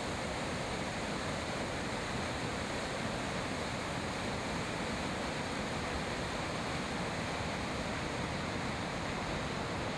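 Yellowstone River pouring over the brink of a large waterfall: a steady, unbroken rushing of falling water.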